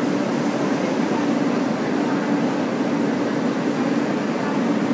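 Steady hum of a stationary R143 subway car's ventilation and onboard equipment while the train stands at a station.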